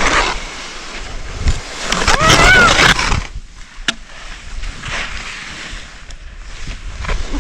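Skis hissing and scraping over snow, with wind rumbling on the microphone; a short high cry from a person about two seconds in.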